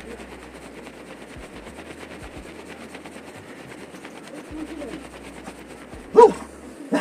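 A dog gives two short barks near the end, the first one loud and the second weaker, over a low steady background hiss.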